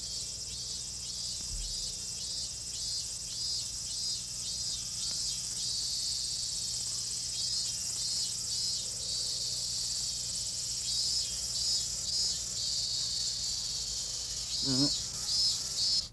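Cicadas singing: a steady high buzz with a pulsing call at about three pulses a second, coming and going in phrases. There is a short sliding tone about a second before the end.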